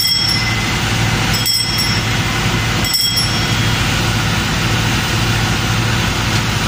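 A small altar bell rung three times, about a second and a half apart, at the elevation of the host after the consecration, over a steady low machine hum.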